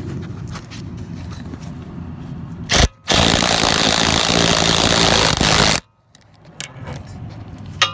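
A power wrench tightening a bolt: a short burst about three seconds in, then a loud steady run of nearly three seconds that cuts off abruptly. Before it there is low rumble and light clicking of tools being handled.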